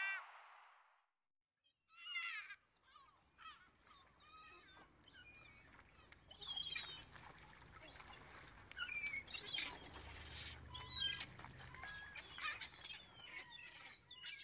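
Birds calling, many short overlapping calls one after another, starting about two seconds in, with a low rumble underneath for several seconds in the middle.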